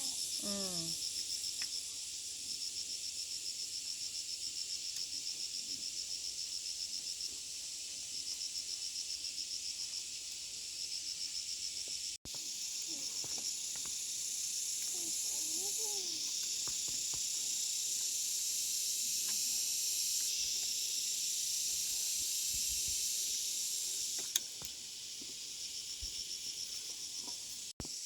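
Chorus of insects chirping, a steady high-pitched shrill with a fast pulsing chirp running through it.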